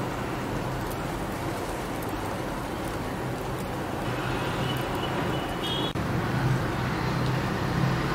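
Steady background noise of road traffic, with a few faint high tones in the middle.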